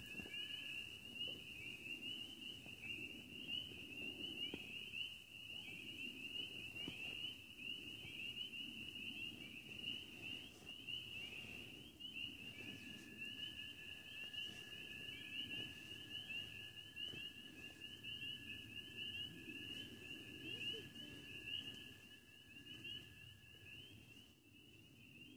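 Faint chorus of calling frogs: a continuous high-pitched trilling of many short rising calls. A thin steady tone joins about halfway through and stops near the end.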